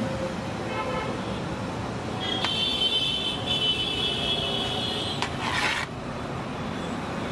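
Street traffic noise with a vehicle horn held for about three seconds, starting a couple of seconds in, followed by a brief hiss.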